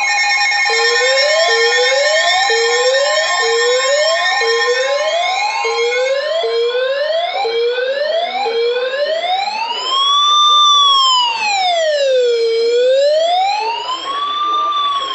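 Steady Emergency Alert System attention tones from overlapping radio alerts, dropping out between about six and nine seconds in. Over them an electronic siren comes in about a second in with short rising whoops about once a second, then about nine seconds in changes to a slow wail that rises and falls every four seconds or so.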